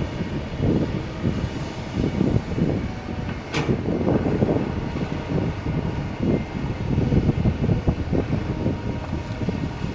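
Kobelco 220 hydraulic excavator's diesel engine running as it works, its level rising and falling, with wind on the microphone. A short sharp sound about three and a half seconds in.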